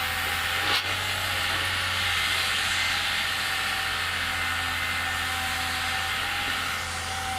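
Excavator's diesel engine running steadily with a constant hiss and a steady whine, with a single sharp click about a second in.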